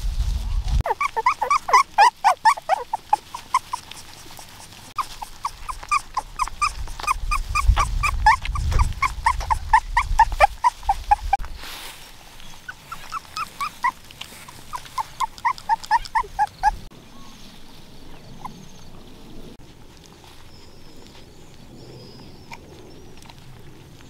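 Young puppies whimpering and squeaking while nursing on their mother, in quick runs of short, high squeaks several a second. The squeaking stops about two-thirds of the way through.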